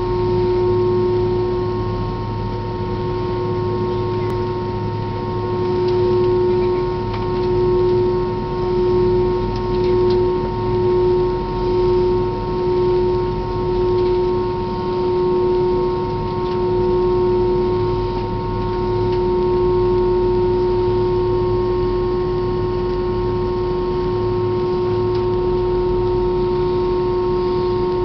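Steady machinery drone with a constant whine, heard from inside an airliner cabin while the wing is being de-iced. For a stretch in the middle it swells and fades about once a second.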